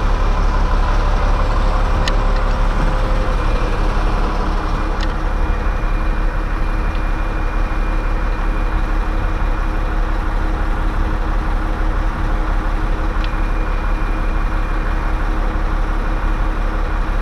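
A heavy engine idles steadily throughout, with a faint steady high whine over it. There are a few sharp clicks, about 2, 5 and 13 seconds in.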